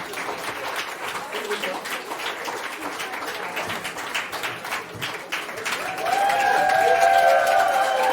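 A crowd applauding and cheering, with dense clapping throughout. About six seconds in, several voices break into long held cheers and the sound swells.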